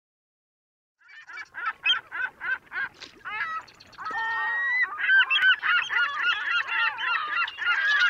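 Gulls calling: one bird gives a quick run of short calls, about three a second, then from about four seconds in many gulls call at once in an overlapping chorus.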